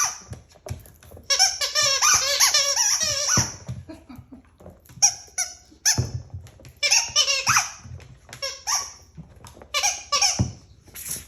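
A dog making high-pitched squeaks in quick wavering runs, coming in several bursts of a second or two with short gaps between them.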